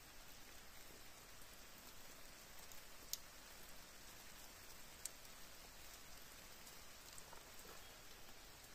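Light rain falling on rock and scrub, faint and steady, with two sharper taps of single drops striking close, about three and five seconds in.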